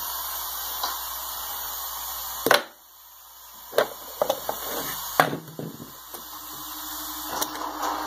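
Knocks and taps of objects handled on a wooden tabletop over a steady hiss, starting with a sharp click about two and a half seconds in. A low steady tone comes in near the end.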